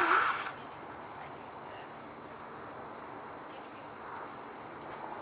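A brief rush of noise in the first half second, then a steady high-pitched insect drone that holds one unchanging tone over faint outdoor background noise.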